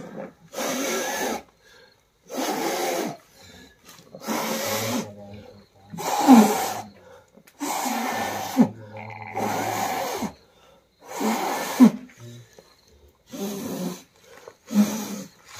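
A man blowing rescue breaths into a newborn calf's nose and mouth: about nine forceful puffs of breath, one roughly every second and a half, to get the limp, premature calf breathing.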